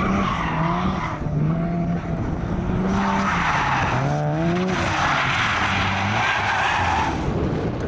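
Mazda RX-7's twin-rotor rotary engine revving up and down through a drift, with its pitch climbing about four seconds in. The tyres skid and squeal across the tarmac in three long stretches: at the start, about three seconds in, and from about five seconds until near the end.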